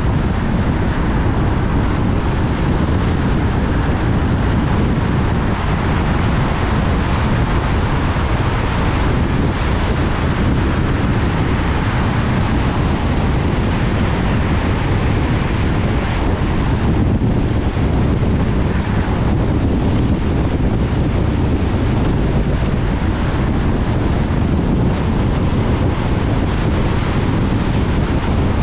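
Steady rumble and hiss of a car driving: tyre and wind noise, even throughout with no breaks.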